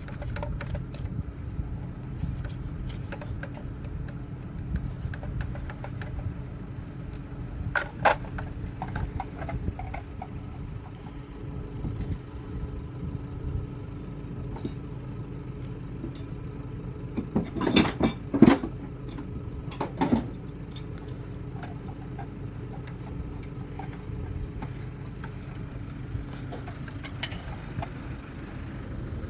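An engine running steadily at idle, with sharp metal clinks and clanks over it: one about eight seconds in, a loud cluster around eighteen seconds in and another about two seconds later.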